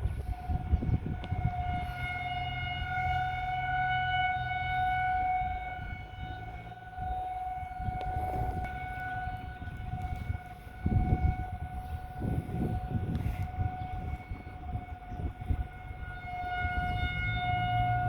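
Federal Signal 2001-DC rotating outdoor warning siren sounding a steady alert tone in its monthly test. It holds one pitch and swells and fades as it rotates. A low rumble runs underneath and surges briefly around eleven and twelve seconds in.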